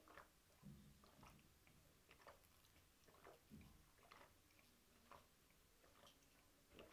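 Near silence with faint, scattered small clicks and soft mouth sounds of quiet eating.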